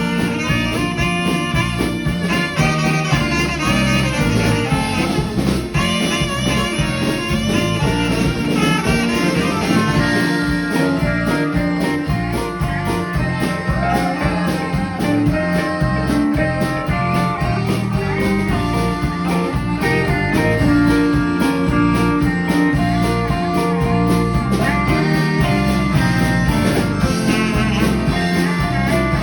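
Band music with horns and guitar over a steady beat.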